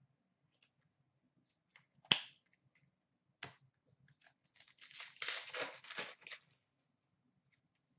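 Handling of a hockey card pack: a sharp click about two seconds in, a lighter tap, then about two seconds of the pack wrapper being torn open.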